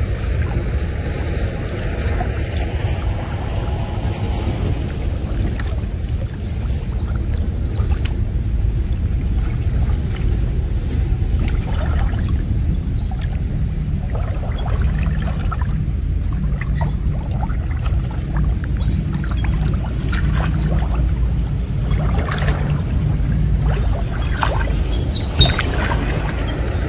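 Water splashing and dripping in shallow muddy water as a wet cast net is lifted and worked by hand to free caught fish, with scattered short splashes over a steady low rumble.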